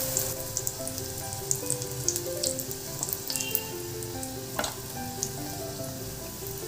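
Stuffed wheat-flour dough patties shallow-frying in a little hot oil in a pan, sizzling steadily with scattered small pops and crackles. A soft instrumental melody plays underneath.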